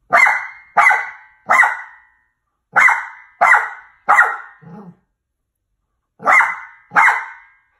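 Maltese dog barking, eight barks in all: three in quick succession, a short pause, three more followed by a brief lower sound, then two more near the end.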